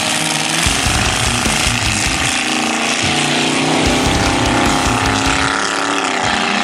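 Two drag-racing cars launching off the starting line and accelerating away down the strip, engines running hard.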